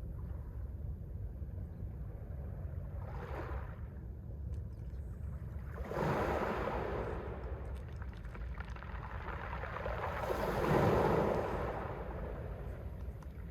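Mediterranean waves breaking on the shore over a steady low rumble. There is a faint wash about three seconds in, a sharper break about six seconds in, and the loudest surge near the end.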